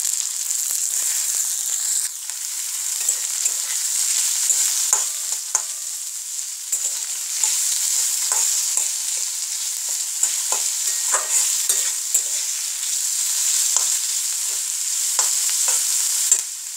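Sliced onions and green chillies sizzling in hot oil in a kadai, with a steel spatula scraping and clicking against the pan many times as they are stirred.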